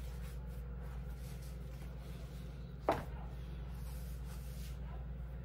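Steady low hum with one sharp knock about three seconds in.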